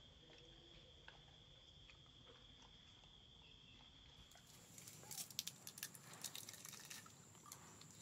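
Faint, steady high-pitched insect trill, which gives way to a higher thin whine about four seconds in; between about five and seven seconds a quick flurry of clicks and taps is the loudest sound.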